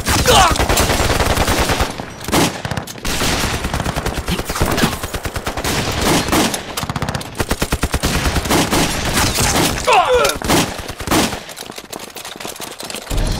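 Heavy gunfire: rapid automatic bursts mixed with single shots, thinning out near the end.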